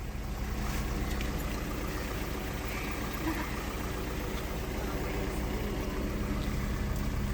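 Steady hum of a car engine running, heard from inside the car.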